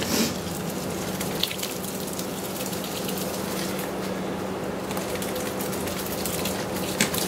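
Hot water running steadily from a hose into a cooler mash tun part-filled with water and crushed grain, with a few short clicks as the grain is worked by hand. A faint steady hum lies underneath.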